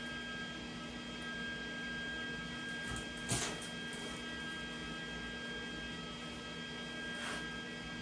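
Steady electrical hum with a few fixed tones. A short knock comes a little over three seconds in, and a fainter one comes near the end.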